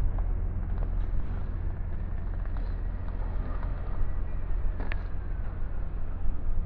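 Steady low rumble of street traffic, with a few faint ticks and one sharper click about five seconds in.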